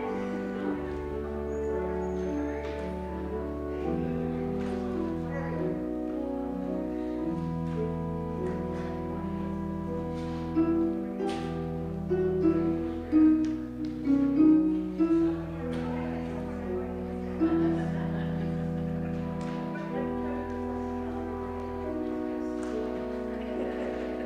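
Church organ playing slow, sustained chords over long held bass notes, with louder melody notes standing out in the middle.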